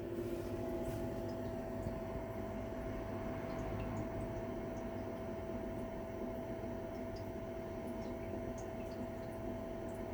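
1983 Mitsubishi V-30ZPU pipe ventilation fan running steadily: an even rush of air with a constant motor hum.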